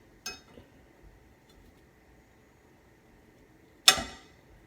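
A metal fork knocks against a pan: a light tap just after the start, then a sharp ringing clink near the end that dies away over about half a second.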